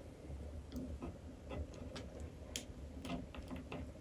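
Irregular light plastic clicks and ticks, about a dozen, from a Lord Zedd action figure's arm joints being moved and posed by hand.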